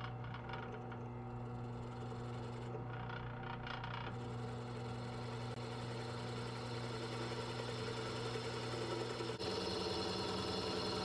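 Drill press running with its twist bit cutting dry, without lubricant, into a cast-iron Z32 brake rotor: a steady motor hum, with the hiss of cutting filling in from about four seconds in and the tone changing abruptly near the end.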